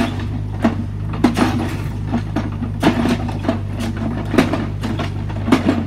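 Mini excavator's diesel engine running steadily while its bucket works dirt and gravel against the limestone wall, with irregular sharp knocks and clanks, about two a second.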